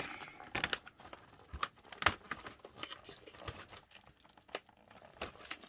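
Handling of cardboard and wrapper packaging: scattered light taps, clicks and crinkles, the sharpest click about two seconds in.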